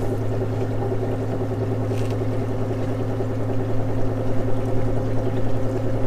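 Electric tour boat under way: the electric drive's steady low hum, with a few fainter steady tones above it, over the wash of water along the hull.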